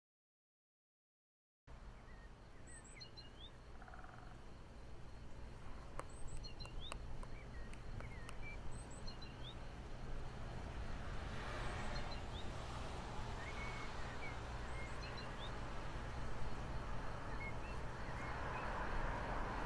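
Silence for about the first two seconds, then outdoor ambience: small birds chirping in many short, quick calls over a steady low rumble and hiss that grows louder toward the end.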